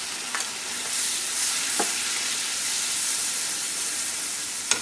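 Onion paste sizzling in hot oil in a pan as it is stirred with a wooden spatula, a steady frying hiss. A few sharp clicks sound over it, the loudest near the end.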